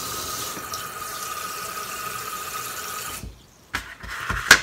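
Kitchen tap running water into a plastic food container, filling it with a steady hiss that cuts off about three seconds in; two sharp knocks follow near the end.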